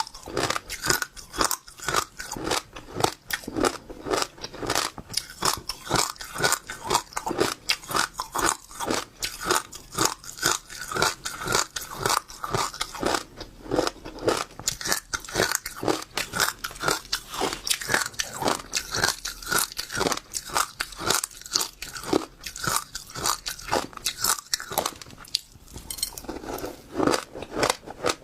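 Passion fruit seeds being chewed close to the microphone: a steady run of crisp crunches, several a second, as the seeds crack between the teeth.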